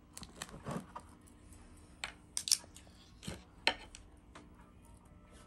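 Set, brittle sohan halwa being broken up and dished out: an irregular scattering of sharp cracks and clicks, pieces snapping and landing on a dish.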